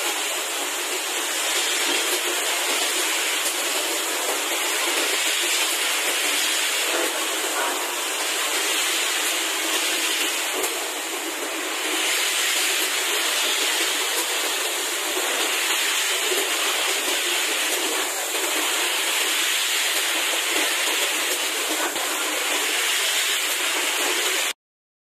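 Water spray jets of an automatic external washer for 5-gallon water bottles, a steady hissing rush of spray as the bottles pass through. It cuts off abruptly near the end.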